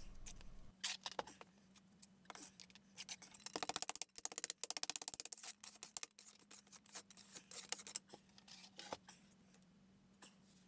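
Hand trowels scraping and packing nearly dry concrete mix around a PVC shower drain flange on a concrete slab, in short gritty strokes with a quick run of strokes in the middle, thinning out near the end.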